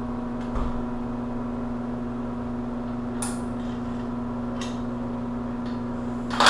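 Steady low hum in the room, with a few light clicks and clinks of metal tools and jig parts being handled, a dull knock about half a second in and a louder click at the very end.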